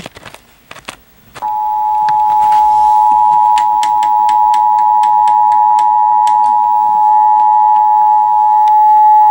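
Emergency Alert System attention signal: the steady two-tone alert (853 and 960 Hz together), held for about eight seconds and starting about a second and a half in after a few sharp clicks. It announces the nationwide EAS test message that follows.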